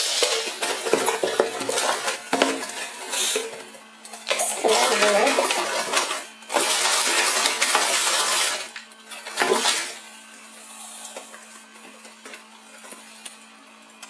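Cardboard box flaps and crumpled brown packing paper rustling and crackling as they are handled, with clicks from metal scissors. After about ten seconds it drops to quiet small handling clicks.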